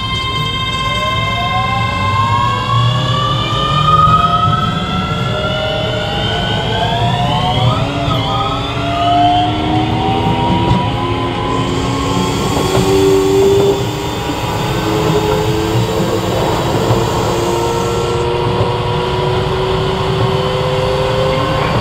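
Keio 7000 series electric train heard from on board, accelerating. The traction motor whine rises in pitch in several tones at once and changes pattern about eight seconds in. The whine then climbs more slowly over a steady low rumble of wheels on rail.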